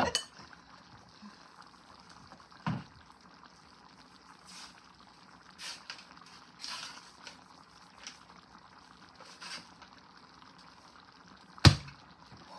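Refrigerated crescent-roll dough can being opened by hand: a few faint rustles as the paper wrapper is peeled, then a single sharp pop near the end as the can bursts open along its seam.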